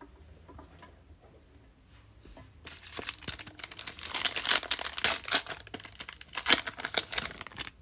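Plastic wrapper of a Topps Fire baseball card pack being torn open and crinkled, starting about two and a half seconds in and lasting about five seconds, with many sharp crackles.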